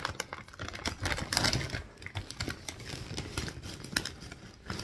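Crunchy veggie chips being chewed and a plastic chip bag crinkling: a rapid, irregular crackle, densest a little over a second in.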